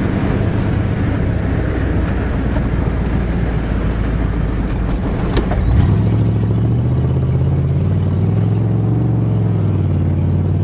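1988 Chevrolet pickup truck's engine running while driving, with road and body rattle. A little past halfway its pitch steps up and holds higher as the engine revs up.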